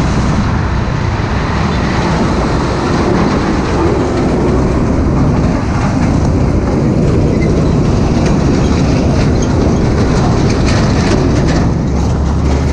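Heavy diesel trucks running close by, heard from a moving motorcycle: steady loud engine rumble mixed with tyre and road noise. A deeper rumble grows near the end as the bike draws alongside a truck-trailer.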